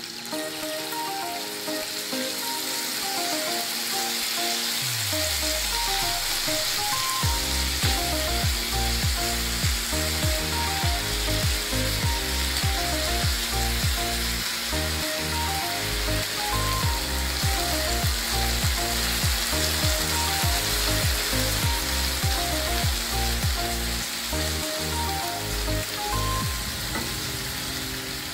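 Marinated chicken tikka pieces sizzling and frying in hot fat in a non-stick kadai, with occasional stirring. Background music with a bass beat plays underneath; the beat comes in about seven seconds in.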